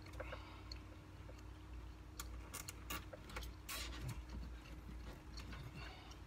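Faint, scattered clicks and knocks of parts and wiring connectors being handled, over a low steady hum.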